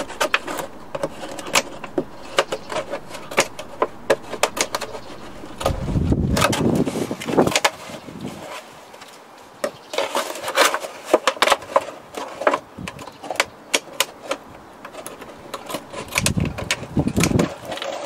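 Scissors snipping through the thin plastic of a plastic bottle: a string of sharp snips and crackles, with two longer, lower rumbling passages partway through and near the end.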